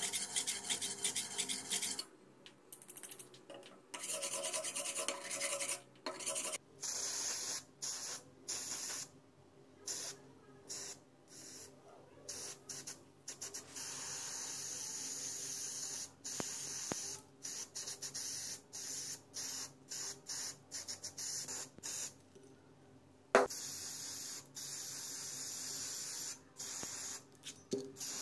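A steel meat cleaver blade being rubbed down by hand with an abrasive, then from about two seconds in an aerosol spray-paint can hissing in many short bursts, which become longer, steady sprays as black paint goes onto the blade. A single sharp click about two-thirds of the way through.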